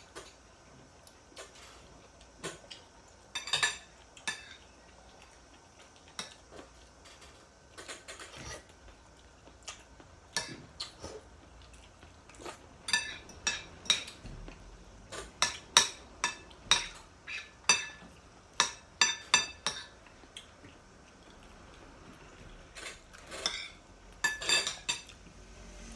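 Metal fork and spoon clinking and scraping against plates while eating. Scattered single clinks at first, then a busy run of them through the middle, and another cluster near the end.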